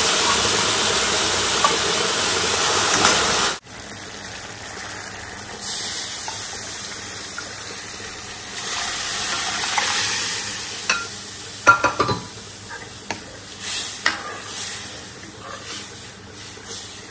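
Pieces of elephant apple (outenga) sizzling loudly in hot spiced oil in a steel kadai; the sizzle cuts off suddenly about three and a half seconds in. After that a liquid is poured in from a pot and stirred, giving a quieter hiss with a few clinks of the steel ladle against the pan.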